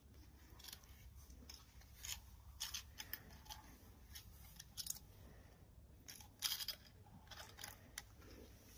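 Faint, scattered clicks and taps of a plastic syringe being worked against a log wall as its needle is pushed into woodworm holes to inject treatment, over a low steady rumble.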